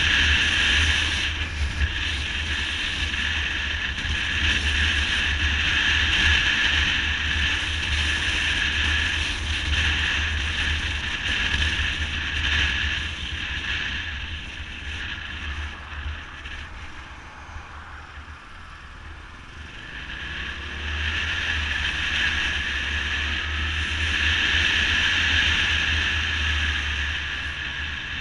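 Wind rushing over the microphone of a motorcycle riding at road speed, with the bike's engine underneath. It eases off around the middle as the bike slows, builds again as it speeds up, and falls away near the end as it slows once more.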